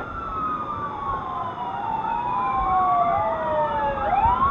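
Warning sirens wailing, two or more at different pitches overlapping: one falls slowly over several seconds, then sweeps sharply back up near the end.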